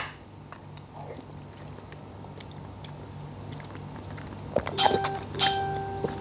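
Close-miked mukbang eating: faint spoon and mouth clicks, then about four seconds in a spoonful of oyster and rice goes in, with wet chewing sounds and two short hums through a full mouth.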